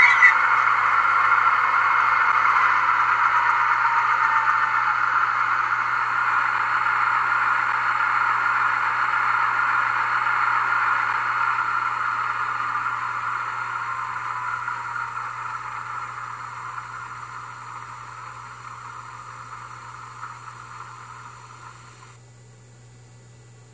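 HO-scale M62 model diesel locomotive's DCC sound decoder playing the engine sound through its small speaker, slowly fading away and cutting off sharply near the end. A steady low hum runs underneath.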